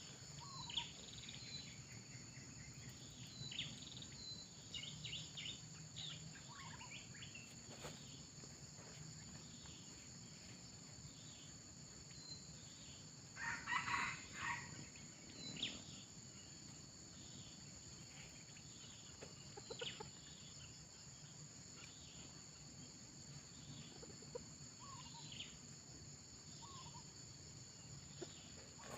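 Red junglefowl rooster giving a short crow near the middle, over a steady high insect drone and scattered small bird chirps.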